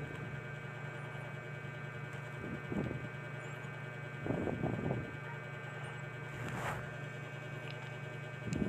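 Steady low background hum picked up by a phone's microphone, with a few brief, soft noises about three, four and six and a half seconds in.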